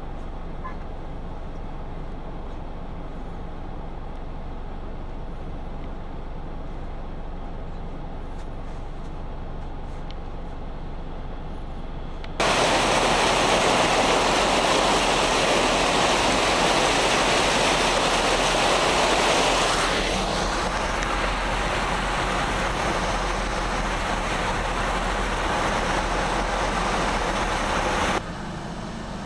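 Rushing floodwater: a steady wash of moving water as an SUV ploughs through water flowing over a road. About twelve seconds in it gives way suddenly to a much louder rush of white water from a car driving through the flood, which eases slightly partway through and cuts off abruptly near the end.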